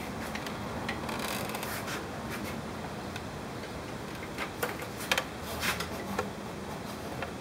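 Handling noise: light rubbing, then a handful of short sharp clicks bunched in the second half, over a steady hiss.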